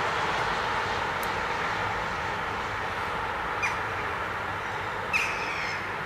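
Steady hum of city traffic, with two short gull calls about three and a half and five seconds in, the second louder and falling slightly in pitch.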